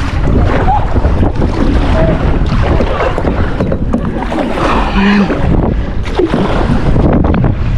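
Strong wind buffeting the microphone while kayaking, with water washing around the kayak beneath it.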